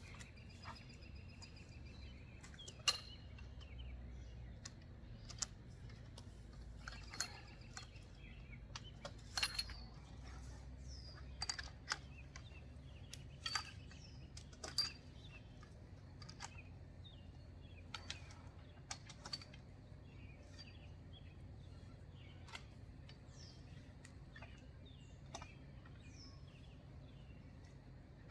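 Scattered light clicks and knocks, about a dozen spread unevenly, from handling the trampoline's enclosure net and its rods as the net is raised. Small birds chirp now and then in the background.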